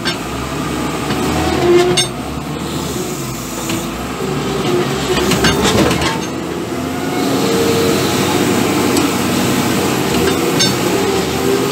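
New Holland W130 wheel loader's diesel engine running steadily as the machine drives, heard from inside the cab, with a whine that shifts in pitch. A few sharp metallic clanks and rattles cut in, about two seconds in, around five to six seconds, and near the end.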